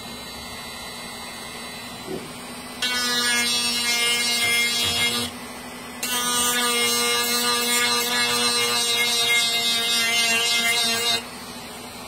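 Handheld rotary tool with a sanding drum running in two bursts, a steady high whine starting about three seconds in, stopping around five seconds, then running again from about six to eleven seconds, as it grinds down the plastic of an electric-toothbrush lock pick.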